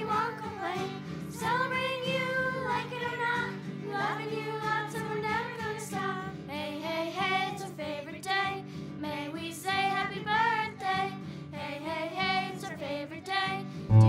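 Background music: a pop song with singing voices over a steady instrumental backing.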